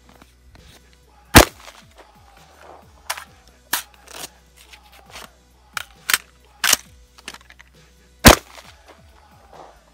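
About seven gunshots fired singly at irregular intervals, the loudest about a second and a half in and near the end, over faint background music.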